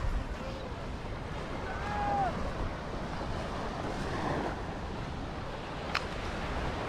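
Wind buffeting the microphone over the steady wash of small surf on a sandy beach.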